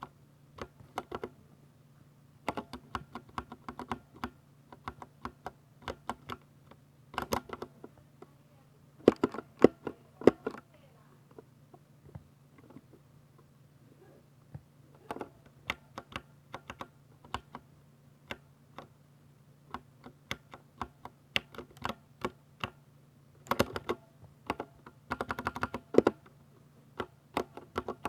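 Typing on a Ducky 60% mechanical keyboard fitted with Cherry MX Silver linear switches: rapid keystroke clicks in irregular bursts with short pauses, the busiest flurries about a third of the way in and again near the end, over a steady low hum.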